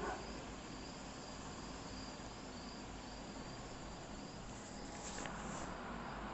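Crickets trilling faintly over steady background hiss.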